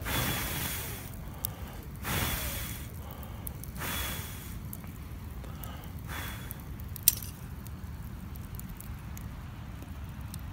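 Campfire sounds: four soft whooshing swells about two seconds apart, small scattered clicks, and one sharp crack about seven seconds in.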